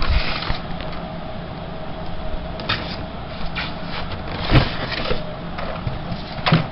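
A plastic toy motorcycle being handled and lifted out of its polystyrene box: rustling and scraping, with a sharp knock about four and a half seconds in and another near the end.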